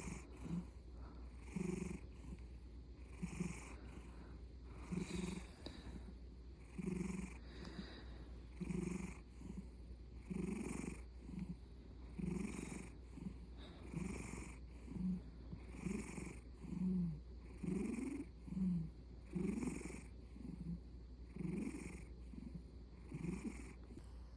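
Siberian cat snoring in its sleep: a short rasping snore on each breath, repeating evenly about once every second and a half to two seconds.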